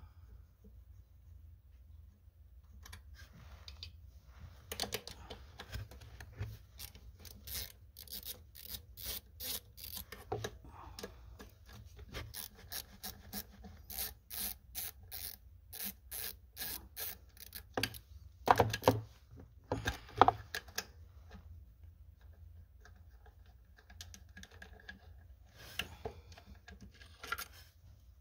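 Hand ratchet wrench clicking in short, evenly spaced runs while the bolts holding a throttle body are loosened, mixed with rubbing and clinking of tools and parts, and a few louder knocks about two-thirds of the way through.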